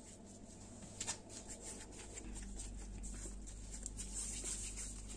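Hands rolling soft bread dough into balls and setting them down on a silicone baking mat: faint rubbing and light taps, with one sharper tap about a second in, over a steady low hum.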